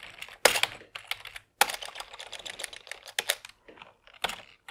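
Typing on a computer keyboard in quick bursts: a sharp keystroke about half a second in, a fast run of keys from about one and a half to three and a half seconds, and a few more strokes near the end.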